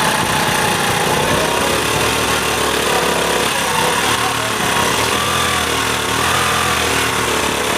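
A vehicle engine running steadily and loudly, with a dense mechanical clatter.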